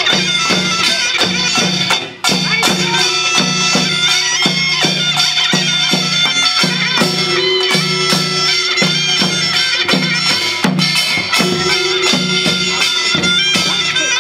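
Korean pungmul folk band music: a reedy taepyeongso shawm carries the melody over steady rhythmic drum and gong strikes.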